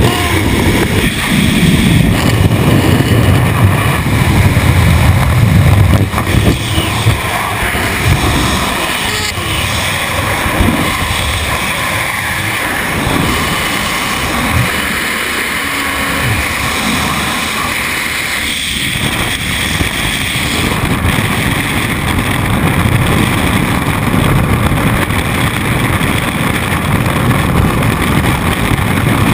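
Loud wind noise buffeting a helmet-mounted camera during a skydiving freefall, a continuous rush that is heaviest and most gusty in the first few seconds after the exit from the plane, then settles to a steadier roar.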